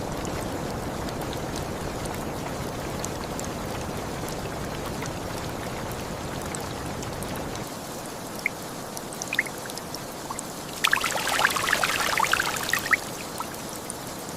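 Steady rain hiss that thins out about halfway through, leaving scattered drips, then about two seconds of splashing, pouring water.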